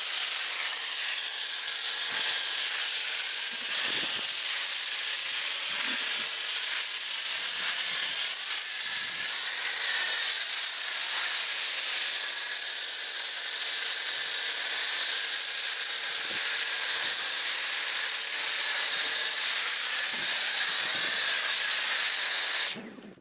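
MJJC foam cannon on a pressure washer spraying snow foam: a steady, loud hiss of the foam jet with a faint steady tone underneath. The hiss cuts off suddenly near the end.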